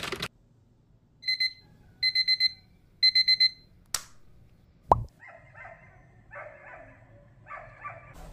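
Digital alarm beeping in quick groups, two beeps and then two runs of four rapid beeps about a second apart. A sharp click, a short loud falling sound and a few brief rough sounds follow.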